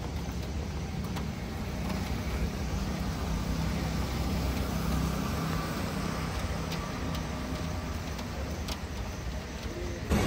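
Steady road traffic noise: a continuous low rumble of vehicle engines going by on the street.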